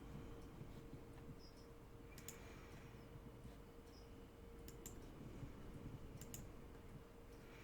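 Faint, sharp clicks of a computer mouse and keyboard, a few close pairs spread apart, over quiet room tone with a low steady hum.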